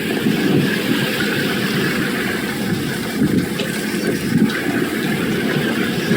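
A boat under way at sea: a steady rushing noise of water and wind, with no speech.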